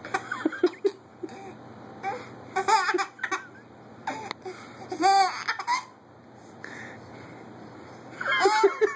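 A baby laughing in about four high-pitched bursts: near the start, around two to three seconds in, around five seconds in, and near the end, with quieter gaps between.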